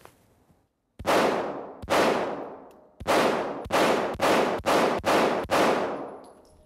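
Kahr T9 steel-frame 9mm pistol fired about eight times: two shots about a second apart, then six in quicker succession. Each shot rings out in a long echo off the walls of an indoor range.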